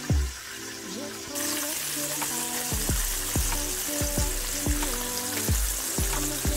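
Breaded fish fillets sizzling as they fry in oil in a skillet, starting suddenly about a second and a half in, under background music with a steady beat.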